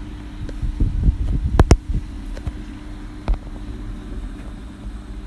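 A steady low rumbling hum with several soft thumps and sharp clicks, typical of a phone being handled: two clicks close together about a second and a half in, and another a little after three seconds.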